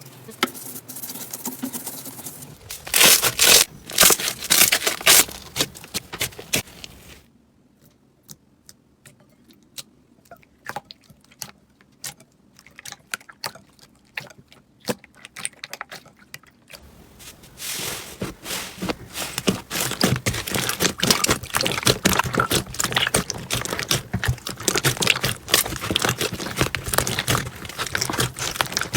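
Slime being squeezed and pressed by hand, making crackling and popping sounds: a loud run of crunchy clicks from about three seconds in, a quieter stretch of sparse pops in the middle, then dense steady crackling from about seventeen seconds on.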